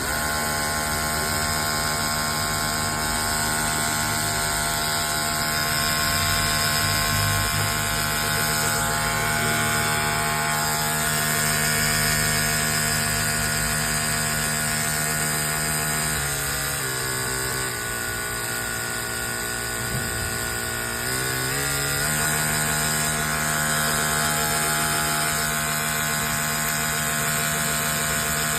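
Maruyama MSB2200RLi battery-powered portable power sprayer running: its electric motor and pump give a steady mechanical hum. A little past halfway the pitch sags for about five seconds, then comes back up.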